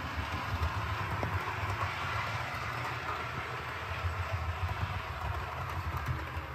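Model Class 68 locomotive running on the layout, hauling the FNA-D nuclear flask wagon along the track with a steady low rumble and hiss.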